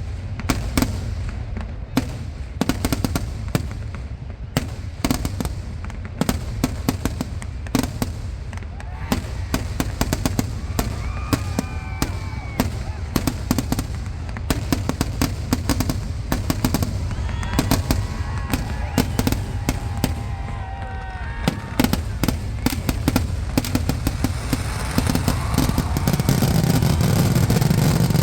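Fireworks barrage going off, a dense, rapid run of firecracker bangs with no break. Some voices are heard in the middle, and a deeper, louder rumble builds near the end.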